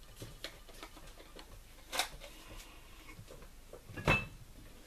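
Light ticks and clicks of kitchen handling, with a sharp click about two seconds in and a louder clink about four seconds in.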